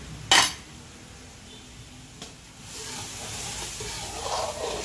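Lechon liver sauce bubbling at a boil in a metal wok, with one sharp clank about a third of a second in. From about three seconds in, a ladle stirs and scrapes through the liquid.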